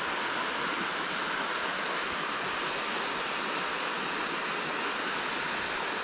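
Water rushing steadily through a concrete spillway, an even wash of noise with no breaks.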